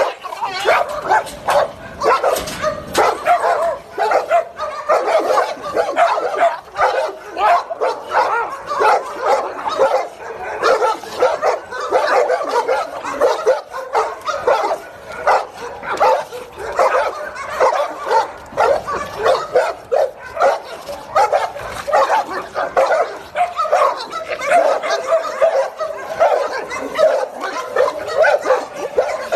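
A dog barking and yipping over and over, two or three short calls a second without a break.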